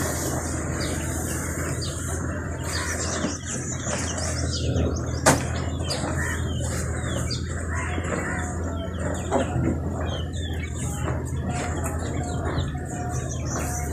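Small birds chirping and twittering over a steady low hum, with a single sharp knock about five seconds in.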